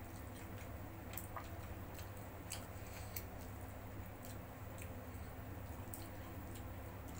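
Eating sounds: scattered small clicks and smacks as fingers pick through rice and fried chicken on the paper wrapping, with chewing, over a steady low hum.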